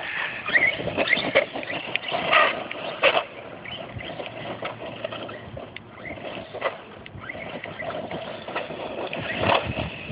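Brushless electric RC monster truck driving, its motor whining up and down in pitch with the throttle over a busy, irregular crackle of tyres working the ground.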